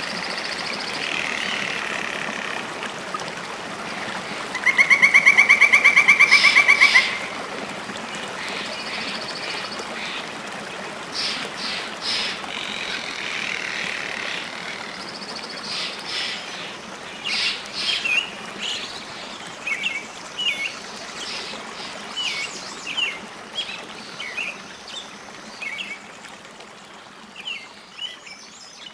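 Birds chirping and calling over a steady background hiss, with a loud rapid trill lasting about two seconds, about five seconds in, then short separate chirps.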